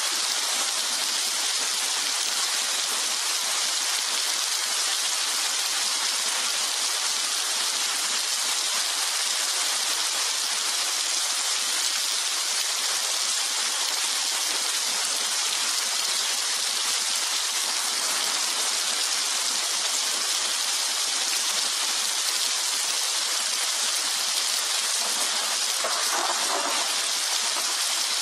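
Steady rain falling, an even unbroken hiss, with a brief faint swell in the lower range near the end.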